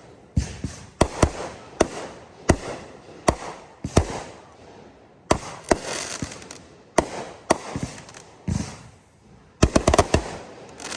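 Aerial fireworks from 500-gram cakes and 3-inch display shells: a steady string of sharp bangs, about one or two a second, with a stretch of hiss about midway and a quick cluster of bangs near the end.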